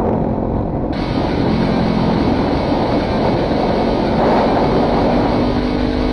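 Wind rushing over an action camera's microphone on a moving motorcycle, with the Kawasaki Ninja 300's parallel-twin engine running underneath. The rushing grows brighter and hissier suddenly about a second in.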